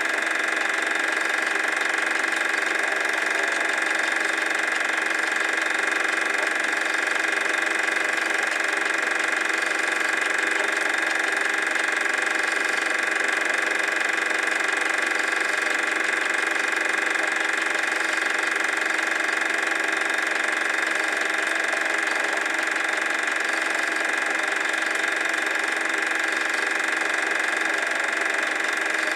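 Super 8 film projector running: a steady mechanical whir with several fixed tones that carries on unchanged through the cuts in the film.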